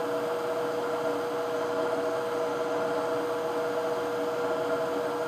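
Hot air rework station blowing at a 40 airflow setting over a NAND chip to reflow its solder balls onto a compact flash board: a steady rushing hiss with a steady hum underneath.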